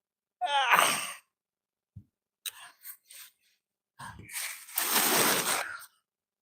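A man's wordless vocal sounds while straining: a short wavering exclamation about half a second in, a few faint clicks, then a long hard exhale near the end.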